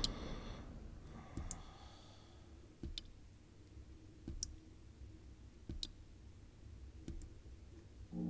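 Faint, sharp clicks repeating evenly about once every second and a half, like a slow mechanical tick, in a quiet room.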